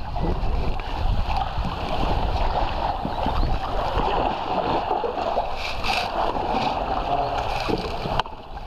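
Shallow river current rushing and splashing around a paddled canoe, with a few faint knocks. The sound drops suddenly near the end.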